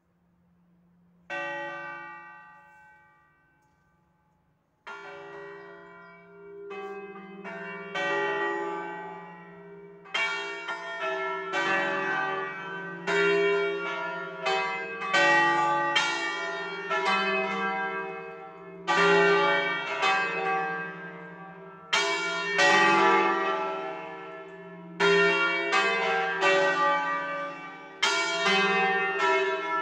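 The four smaller bells of a five-bell ring in C, bronze church bells swung on wheels, start a full peal (distesa). A single stroke comes about a second in and fades. From about five seconds in the strikes come faster and overlap as the bells reach full swing, ringing out together.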